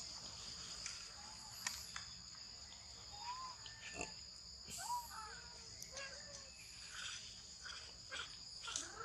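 Steady, two-toned high buzz of forest insects, with a few short, soft chirps and scattered light clicks over it in the middle stretch.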